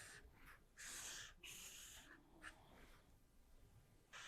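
Faint scratchy strokes of a pen drawing lines on a sketch: two half-second strokes about a second in, then a brief tick.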